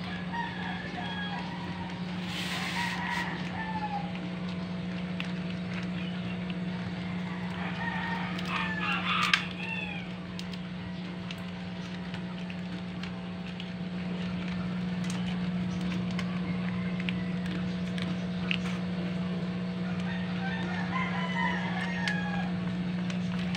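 Animal calls rising and falling in pitch come in three spells, near the start, about a third of the way in, and near the end, over a steady low hum. A sharp click sounds in the middle spell.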